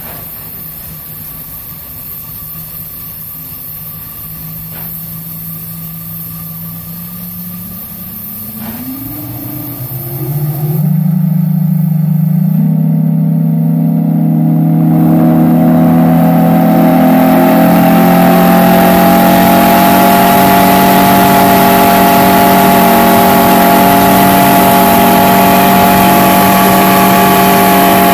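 A large multi-chime whistle blown in one long, held blast: a chord of several steady tones that comes in loud about eleven seconds in and creeps slightly up in pitch as it holds. Before it, a fainter low steady tone sounds, sliding up in pitch shortly before the loud blast.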